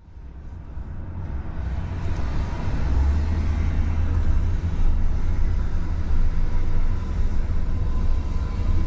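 Steady low rumble of a road vehicle, fading in over the first couple of seconds.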